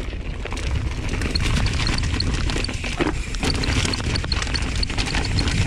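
Mountain bike rolling fast down a rocky trail: steady low wind rumble on the helmet camera's microphone, with the rattle and knocks of the bike clattering over rock.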